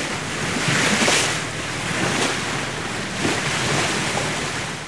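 Sea surf breaking and surging against a rocky shore, a steady wash of foaming water that swells and eases a few times.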